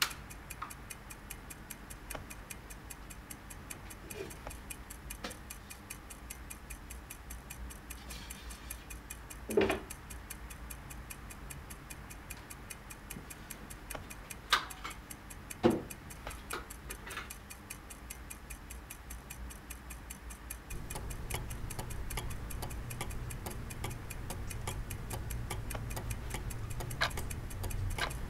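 Clock ticking steadily, with a few louder knocks about ten and fifteen seconds in. A low hum joins about two-thirds of the way through.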